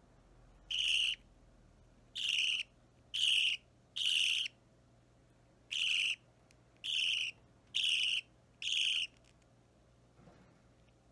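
Budgerigar chick about three weeks old giving eight short, high begging calls, each about half a second long, at uneven intervals, as it is hand-fed. The calls stop about two seconds before the end.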